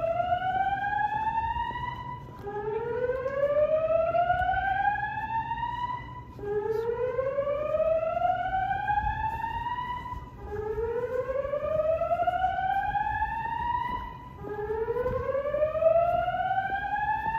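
Building fire alarm evacuation system sounding a slow whoop: a tone that sweeps upward over about three and a half seconds, holds briefly at the top, and starts again about every four seconds, signalling everyone to evacuate.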